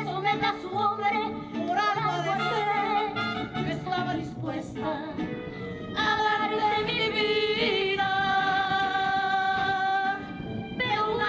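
A woman singing a mariachi-style song in Spanish into a microphone over instrumental backing, holding one long note from about six seconds in until near the end.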